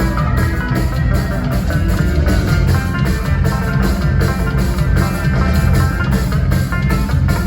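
Live "thrash grass" band playing a loud instrumental passage: quick plucked string-instrument notes over bass and a drum kit, with no singing.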